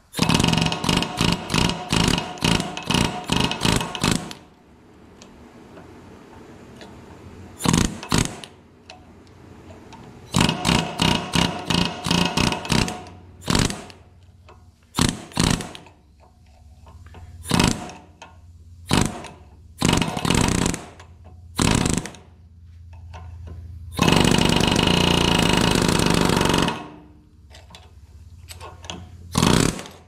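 Pneumatic air hammer with a pointed tip hammering on a worn spindle bushing inside the cast front spindle tube of a 1970 Minneapolis Moline U302, run in stop-start bursts to get under the bushing's edge and peel it out. It comes in quick trigger pulses for the first four seconds, then in shorter stabs, with the longest burst, about three seconds, near the end.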